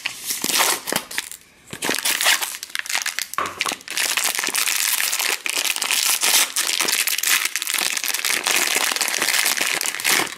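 Foil blind-bag pouch being handled and worked open by hand: scattered crackles at first, then from about four seconds in a continuous dense crinkling of the foil.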